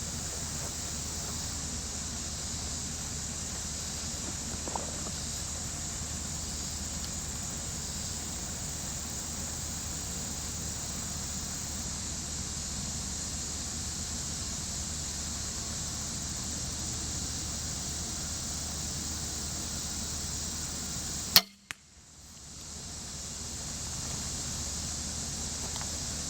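Excalibur Matrix 380 recurve crossbow firing once, a single sharp crack about 21 seconds in, after a long stretch of steady outdoor hiss. The level drops out briefly right after the shot, then comes back.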